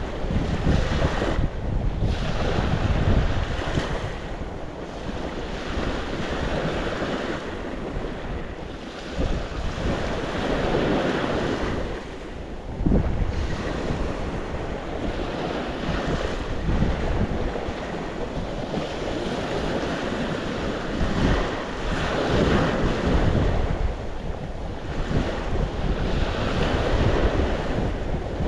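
Sea waves breaking and washing on the shore, the surf swelling and easing every few seconds, with wind buffeting the microphone as a low rumble.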